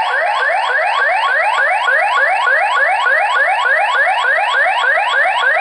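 X-Sense home security base station's built-in siren sounding a loud, rapid train of rising electronic whoops, about four a second: the intrusion alarm, set off by the motion sensor while the system is armed in away mode.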